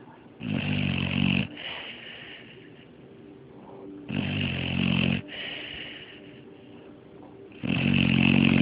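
Six-month-old pit bull puppy snoring: three loud snores, each about a second long and about three and a half seconds apart, with softer breaths between them.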